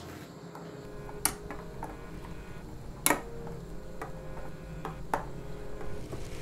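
A long twisted metal spoon stirring tea in a glass teapot, clinking sharply against the glass a few times, loudest about three seconds in.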